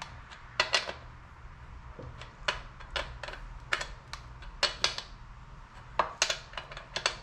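Sharp metal clicks and taps, irregular and some in quick pairs, as a wrench works the chainsaw's bar nuts tight a little at a time.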